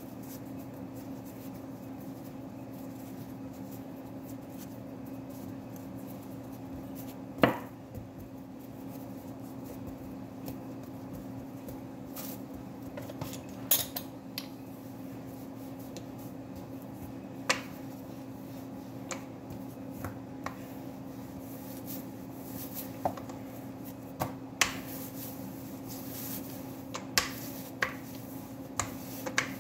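Pizza dough being shaped by hand and rolled out with a rolling pin on a plastic-covered kitchen counter: scattered light clicks and knocks of hands and kitchen utensils, one louder knock about seven seconds in and more frequent ones near the end, over a steady low hum.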